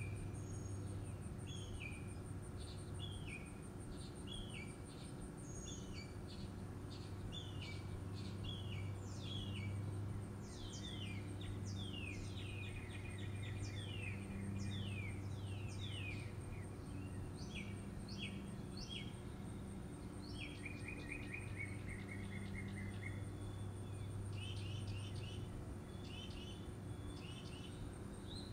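Birds chirping and singing in quick, varied calls and trills, over a steady low hum and a constant thin high-pitched whine.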